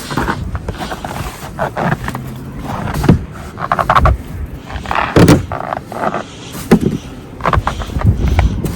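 Blizzard wind gusting hard against the microphone, in uneven surges with scattered sharp knocks.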